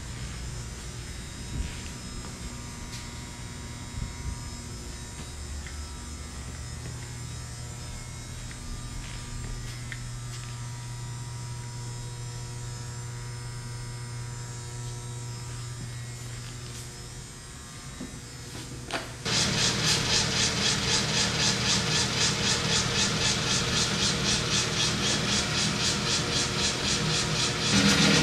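Electric motor of a Clausing 13 x 36 engine lathe humming steadily, with a few light clicks. About two-thirds of the way in it jumps suddenly louder into a fast, even clatter, as the spindle drive and gearing are set turning.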